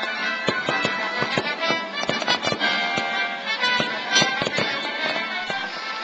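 Fireworks bursting over live music: many sharp bangs and pops, several a second, on top of steady sustained musical tones.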